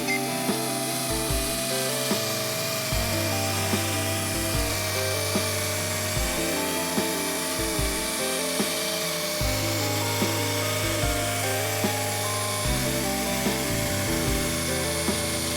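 Background music with a bass line and a steady beat, over a continuous rasping, rubbing noise of abrasive work on car paint.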